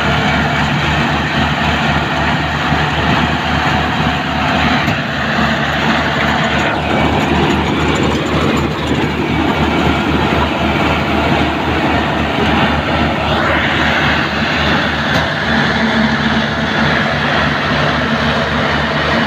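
Rice combine harvester running steadily: a constant engine drone with a fast, even low pulse under a broad rattling noise from the machinery.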